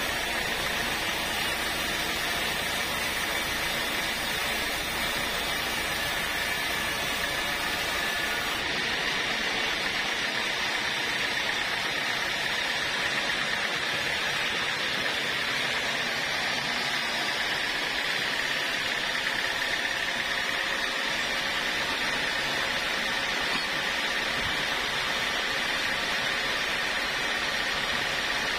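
Sawmill log band saw ripping lengthwise through an acacia log: a steady, even noise of the blade in the wood over the running machine, with a high whine.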